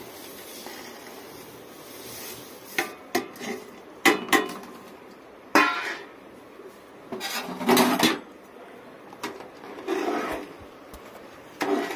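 Metal utensils clanking and scraping against a metal cooking pot as food is tipped in from a metal plate and stirred with a ladle. Several sharp clinks come from about three seconds in, with a cluster near eight seconds.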